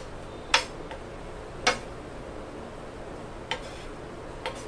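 Wooden spatula stirring chopped garlic in a coated frying pan, knocking against the pan in a few sharp taps at irregular intervals.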